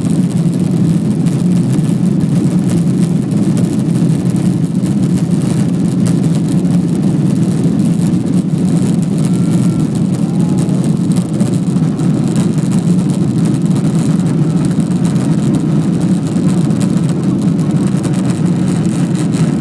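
Steady low rumble of a Boeing 777-200 airliner's engines and rolling gear, heard inside the passenger cabin as the aircraft moves along the ground.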